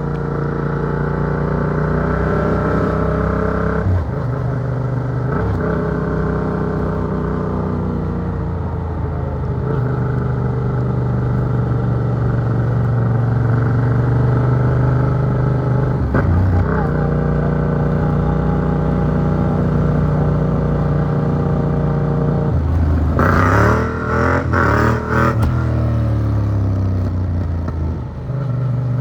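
Yamaha MT-07's two-cylinder CP2 engine through an Arrow Works exhaust, pulling hard through the gears: the engine note climbs, drops at each shift and climbs again. About three-quarters through comes a short rough stretch of quick revs and crackle before it settles back into a steady pull.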